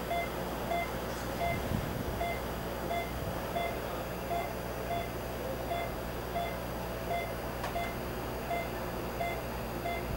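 A patient monitor's pulse oximeter beeping steadily, one short mid-pitched beep about every 0.7 seconds in time with the patient's heartbeat, over a steady low room hum.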